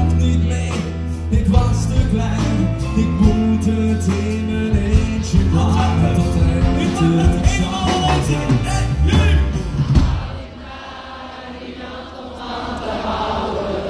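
Live band with saxophone, trumpet, drums and electric guitars playing behind two male singers in a Dutch-language levenslied. The music stops about ten seconds in and the crowd cheers.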